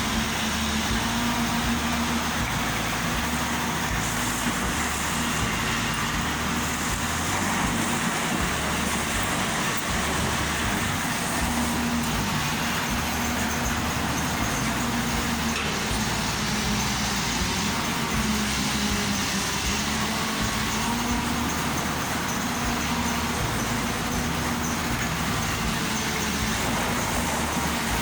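Excavator's diesel engine running steadily, with a hum that swells and fades and an uneven low rumble underneath.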